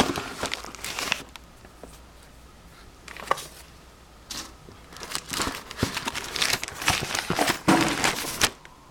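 Retail box packaging being opened and handled, with cardboard and plastic rustling and crinkling. The rustling comes in bursts: one at the start, a quiet stretch of a few seconds with a couple of small clicks, then a longer run of crinkling near the end.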